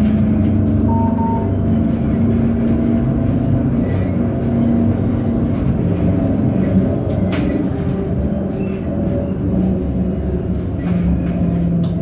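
A tram in motion, heard from on board: a steady low rumble with a constant low hum, and a few faint clicks.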